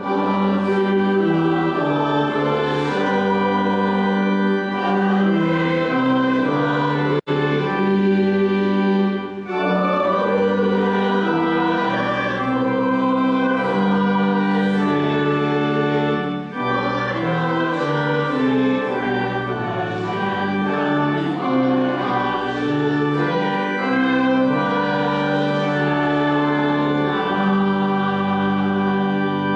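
A choir singing a slow hymn in held chords that change every second or so, with a momentary dropout about seven seconds in.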